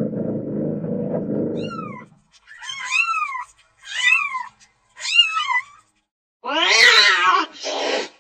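Domestic cat meowing: four short meows, each rising then falling in pitch, then a louder, longer, wavering meow near the end. A low, steady rumble fills the first two seconds.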